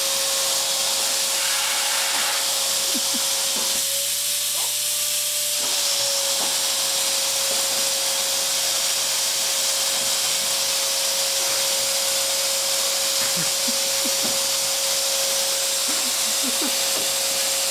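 Vacuum cleaner running steadily, a constant rushing hiss with a steady whine. About four seconds in, the whine rises slightly and the rush thins for a second or two, then both settle back. A few faint knocks and scrapes come and go.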